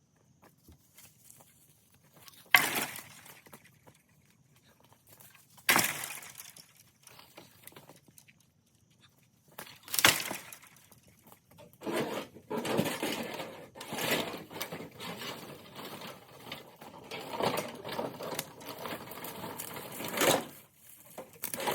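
Three sharp impacts a few seconds apart, like scrap metal pieces being tossed down, then from about twelve seconds in a continuous rustling and scraping as junk is dragged out through dry brush and leaves.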